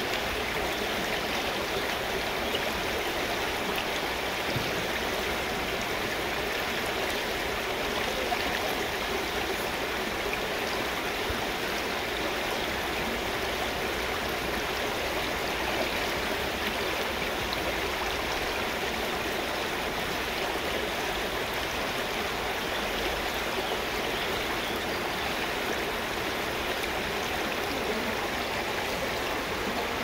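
Rushing water of a clear mountain river, a steady, even flow that does not change.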